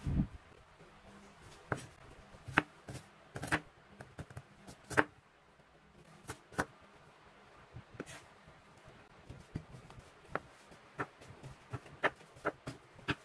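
Kitchen knife cutting red onion, then sausage, on a bamboo cutting board: sharp, irregular knocks as the blade hits the board, about one or two a second, with a few slow gaps between.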